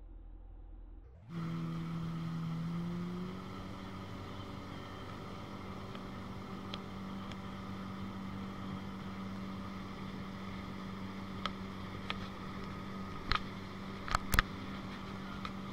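Motorboat engine running steadily under way, with the rush of water churning in the wake behind it. The sound comes in abruptly about a second in, and the engine note rises a little a couple of seconds later. A few sharp knocks come near the end, two of them loud and close together.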